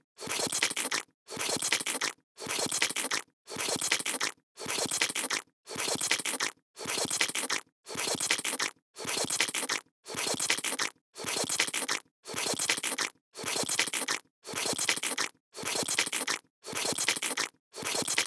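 A short scraping, crunching sound effect looped over and over, each about a second long, with a brief gap between repeats about once a second.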